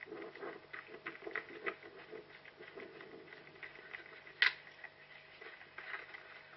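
A running orienteer's footsteps and the scuffing and rustling of ground and undergrowth, picked up by a head-mounted GoPro, in an uneven patter of soft knocks. One sharp click sounds about two-thirds of the way in.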